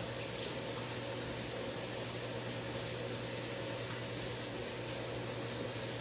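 Kitchen tap running water steadily into a sink, an even hiss with a faint hum under it.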